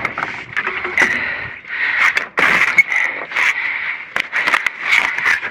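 Debris being shifted and dug through in a dumpster: irregular scraping, with sharp knocks and clatters of boxes, cable and scrap being moved.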